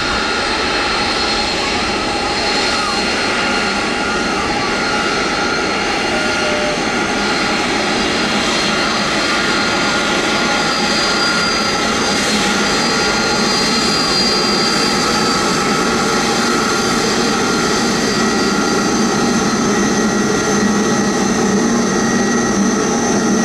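Jet aircraft engines running steadily on the airfield: a continuous rush of engine noise with several high whining tones held at steady pitches.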